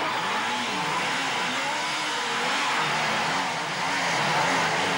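Motorcycle engines revving and running as several police motorbikes move past, their pitch rising and falling over a dense, steady noise.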